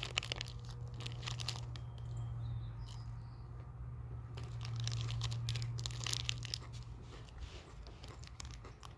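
Crinkling and crackling of a Reese's Crispy Crunchy candy bar and its wrapper being handled, in irregular bursts of small sharp crackles, over a steady low hum.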